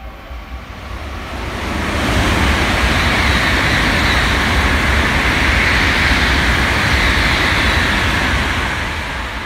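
N700S Shinkansen bullet train passing through the station at high speed. A rush of wind and wheel noise builds over the first two seconds, holds loud for about six seconds, then fades as the train leaves.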